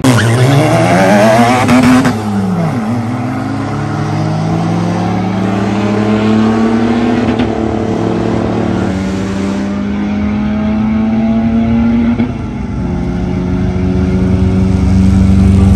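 A drag-racing car's engine at full throttle on a launch and run down the strip. The pitch sweeps up fast at the start, then climbs steadily through the gears, dropping sharply at an upshift about nine seconds in and again about twelve seconds in.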